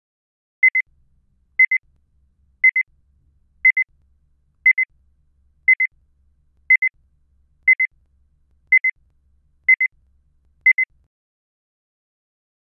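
Electronic beep tone at one steady pitch, sounding as a quick double beep once a second, eleven times, then stopping. These are timing beeps counting off the answering pause after an exam question is read out.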